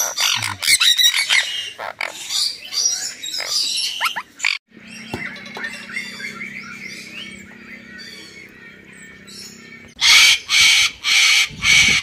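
Sun conure squawking in a quick run of sharp calls; after a stretch of low steady hum with faint chirps, a white cockatoo gives loud screeches, evenly repeated about two a second.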